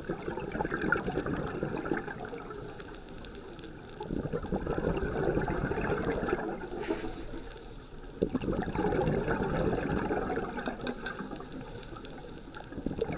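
Underwater recording of a scuba diver's breathing through the regulator: bursts of exhaled bubbles about every four seconds, each lasting two to three seconds, with quieter pauses between them.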